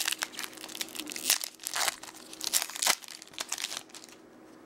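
Baseball trading cards being handled and slid against one another, a quick run of rustling, crinkling scratches that dies down near the end.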